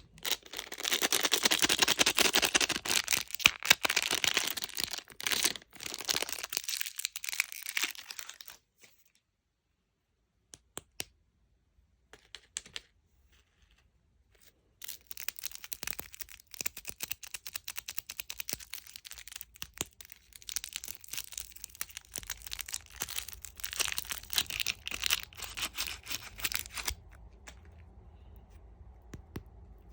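Plastic candy wrappers crinkling and tearing open in dense stretches, broken by a pause of several seconds with only a few isolated clicks. Near the end the crinkling stops, leaving a faint low hum.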